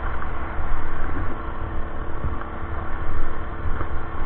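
Small gas generator engine on a hybrid electric bike running steadily under load while riding, with a strong low rumble from wind on the microphone.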